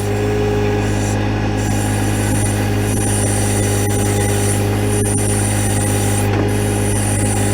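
John Deere 1025R compact tractor's three-cylinder diesel running steadily at working throttle while the backhoe hydraulics work, with a thin high squeal above the engine.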